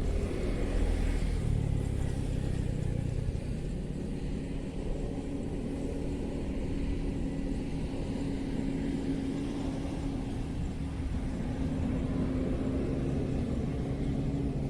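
An engine running steadily: a low rumble with a held hum that grows stronger from about a third of the way in.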